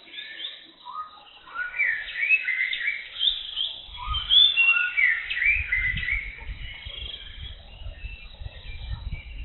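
Jungle birds chirping: many short whistled notes gliding up and down, densest in the first two-thirds. A low rumble joins from about four seconds in.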